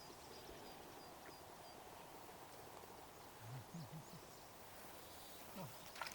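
Faint outdoor quiet in which a distant bird gives a quick series of short, high notes during the first two seconds; a few faint low sounds follow later.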